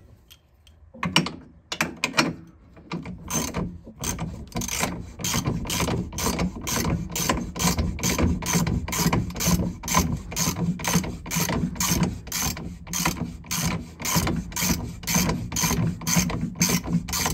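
Hand ratchet wrench clicking steadily, about three clicks a second, as the nut is run onto the bolt through the bottom of the front strut. The clicking starts about a second in.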